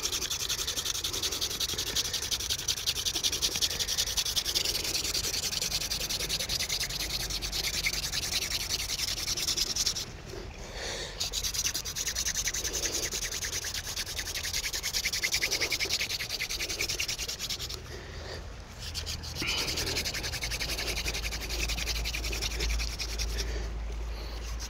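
Hand drill fire by friction: a cattail and cottonwood-root drill set, the spindle spun fast between the palms in a fresh notch of the hearth board. It makes a steady dry rubbing with a fine, rapid grain. The rubbing stops briefly about ten, eighteen and twenty-three seconds in, as the hands go back to the top of the spindle.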